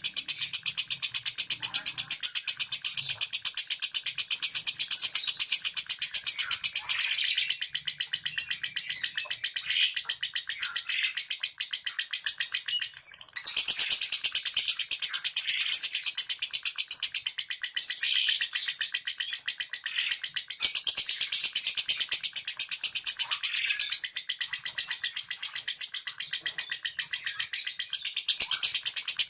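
Lovebird giving its 'ngetik' song: a very rapid, dense run of clicks like fast typing, sung in long phrases of several seconds, with a few short high chirps mixed in.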